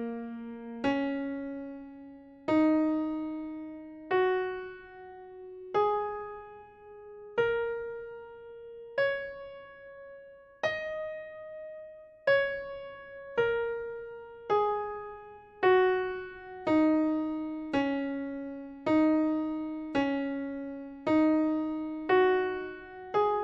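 Background music: a slow melody of single piano-like keyboard notes, each struck and left to fade. The notes come about every one and a half seconds, then a little faster from about halfway on.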